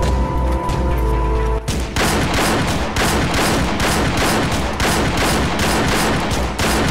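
Music with held synth tones and heavy bass, cut off about one and a half seconds in by a long volley of rapid gunfire, many shots a second, with the bass still underneath.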